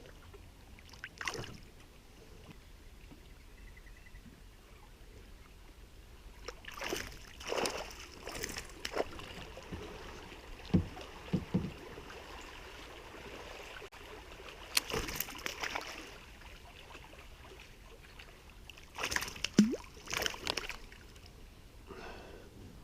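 Intermittent water splashes and small knocks around a kayak, in short clusters over a quiet lapping background.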